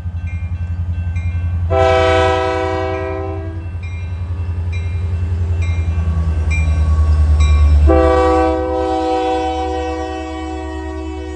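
Nathan Airchime K3LA three-chime air horn on a Union Pacific GP40P diesel locomotive sounding two blasts: one of about two seconds beginning about two seconds in, and a longer one starting about eight seconds in and still held at the end. Beneath it the locomotive's diesel engine throbs, growing louder until about eight seconds in, then easing off.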